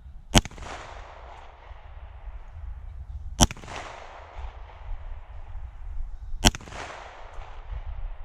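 Three 9mm pistol shots, evenly spaced about three seconds apart, each a sharp crack followed by an echo that dies away.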